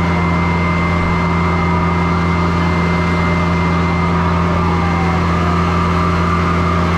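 Fire truck's engine running steadily at a constant speed: a loud, even hum with a thin, steady high whine above it.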